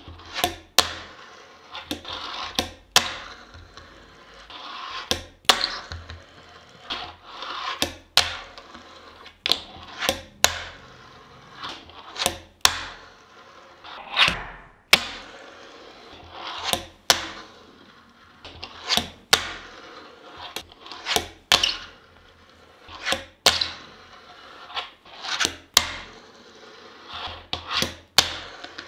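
Fingerboard tricks on a wooden tabletop: repeated sharp clacks as the board's tail is popped and the board lands, with the small wheels rolling across the wood between the clacks.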